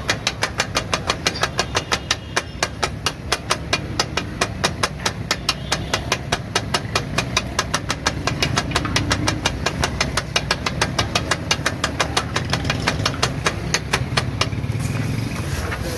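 Metal spatulas chopping on a flat iron griddle (tawa), a fast, even clack-clack of about five strikes a second over food sizzling, as the boiled eggs and keema are chopped together. The chopping stops near the end, leaving the sizzle.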